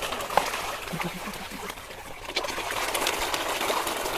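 Water splashing and slapping as a dense crowd of koi thrash and jostle at the surface for food, with many small sharp splashes overlapping.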